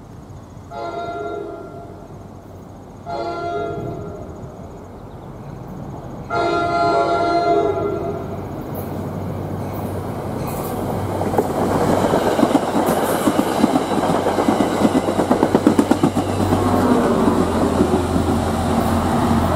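A passenger train's horn sounds three blasts, the last the longest, then the train passes close by with a rising rumble and wheels clattering over the rail joints. Near the end the diesel engine of the Geep locomotive pushing at the rear hums as it goes past.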